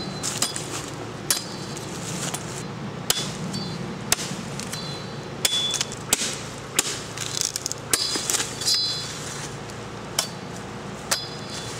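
Machete chopping the leafy side branches off a freshly cut sapling: a run of sharp, irregular chops, about two a second, many with a brief metallic ring from the blade.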